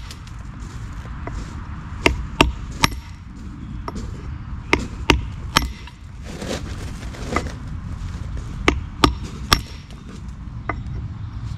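A 3-pound hammer striking a Trow & Holden carbide rock-facing chisel against a Blue Mist granite edge, rock facing the stone along a marked line. The strikes are sharp and come mostly in quick runs of three, a couple of seconds apart, with a few lighter single taps between.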